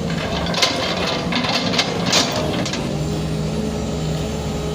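Excavator's diesel engine running steadily while digging soil, with a few sharp clanks and scrapes in the first half.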